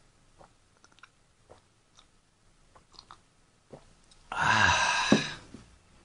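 Makgeolli being poured from the bottle into a glass, a loud splashing pour lasting about a second and a half, starting a little after halfway. Before it there are only a few faint clicks.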